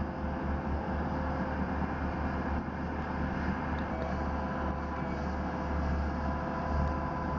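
Diesel engines of asphalt paving machinery running steadily: a low rumble with a few steady whining tones held above it.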